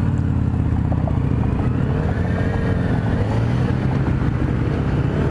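Motorcycle engine running at a steady pitch, loud and continuous, with a faint tone gliding up and down in the middle.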